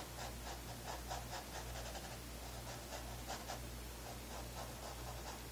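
Paintbrush bristles working thinned paint onto a stretched canvas: a run of faint, irregular brushing strokes. A steady low hum lies underneath.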